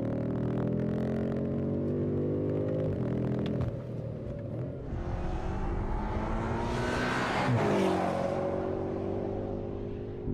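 BMW M5 F90's twin-turbo V8 running with a steady, slowly rising note that falls away under four seconds in, then climbing in pitch and growing louder, loudest about seven to eight seconds in, before its pitch drops sharply.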